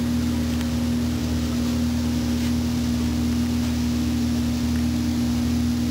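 Steady machine hum from a running electric motor, holding one low droning pitch without change.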